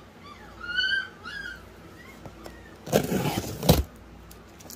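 A puppy whining in short high cries that bend up and down during the first second and a half. About three seconds in comes a loud scratchy rasp as a knife slices through the packing tape on a cardboard box.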